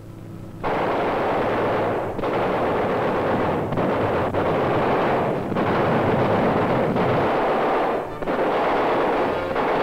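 Flying boat's turret machine guns firing in long, rapid bursts. The firing starts suddenly about half a second in and runs on with several short breaks.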